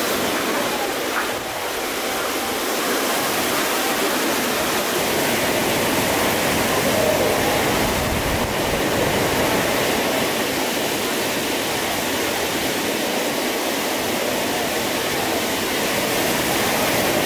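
Ocean waves breaking: a steady, even rush of white water that does not let up.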